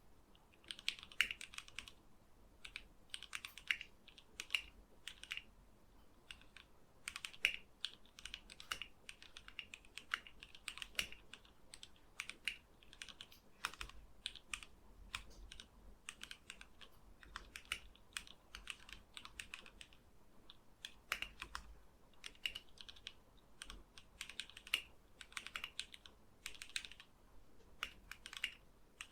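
Typing on a plateless mechanical keyboard fitted with lubed and filmed Gateron KS-3 Black linear switches, GSA-profile ABS keycaps and a wooden case: rapid keystroke clacks in runs with short pauses between them.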